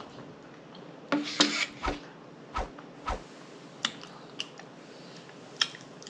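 Scattered clicks and soft low thumps of eating and tableware: lip smacks and mouth sounds, and an empty paper plate and metal fork handled and set down on the table. A cluster of sounds comes a little over a second in, three dull thumps follow over the next two seconds, and a few lone clicks come later.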